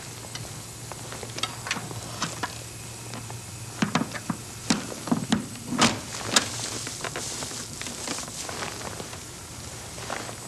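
Spacesuit helmet being lowered and fitted onto the suit's neck ring: a cluster of clicks and knocks, loudest between about four and six and a half seconds in. Under it runs a steady low hum with hiss.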